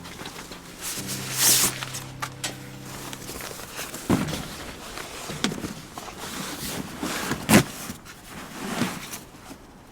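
Background music that stops about three seconds in, then a handful of separate knocks and rustles, the loudest about seven and a half seconds in.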